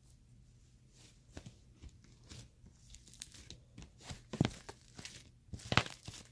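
Fluffy slime made from glue and shaving foam being kneaded and stretched by hand: faint sticky crackling and squelching, with two louder snaps about four and a half and six seconds in.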